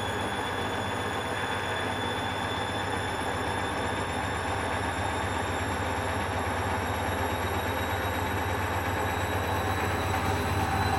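Hoover Dynamic washing machine spinning: a steady motor whine rising slowly in pitch over a low hum as the drum gathers speed, growing a little louder near the end.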